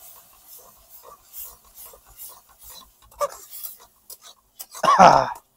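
A flat spatula scraping and stirring wet tomato masala around a metal kadhai, in short repeated strokes. A brief, louder pitched sound comes about five seconds in.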